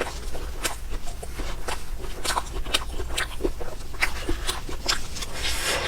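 Close-miked eating of a soft dessert: irregular wet mouth clicks and chewing. A brief hissing rustle comes near the end.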